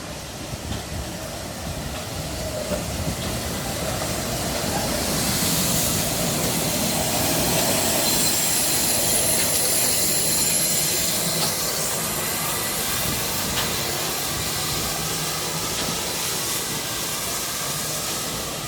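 Steam locomotive and its train running into the station, growing louder to a peak midway and then easing slightly. A high metallic squeal from the wheels sounds through the loudest part, with a few clanks from the rails.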